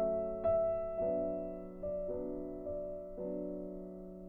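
Background music on a piano-like keyboard: soft chords struck every half second to a second, each fading slowly before the next.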